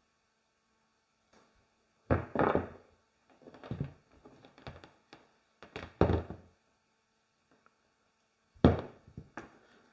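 A handful of dull knocks and thunks from hard objects being handled or set down, spread a second or two apart. The sharpest comes near the end.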